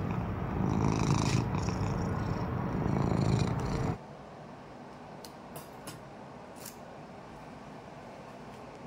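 Domestic orange-and-white cat purring close to the microphone, a steady low rumble that swells and eases with its breaths. It cuts off suddenly about four seconds in, leaving quiet room tone with a few faint clicks.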